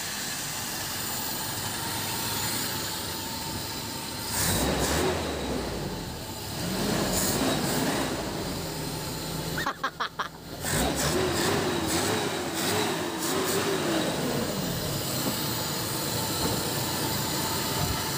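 Toyota 7K four-cylinder carburetted engine running just after being started, following a tune-up with new contact points. A wavering whine rises and falls twice over the steady running.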